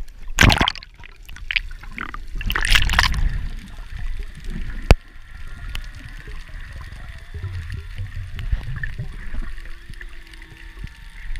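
Water splashing and bubbling as a snorkeler ducks under. Then comes the underwater sound: a crackle of snapping shrimp on the bottom, with one sharp click about five seconds in, and faint humpback whale song tones in the background in the second half.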